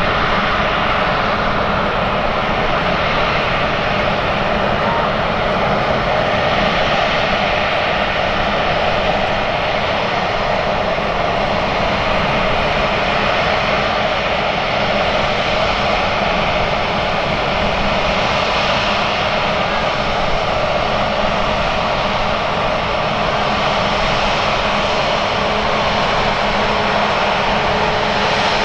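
Airbus A350-941 airliner's Rolls-Royce Trent XWB jet engines running steadily, a continuous loud rush of jet noise that holds at an even level with no clear rise or fall.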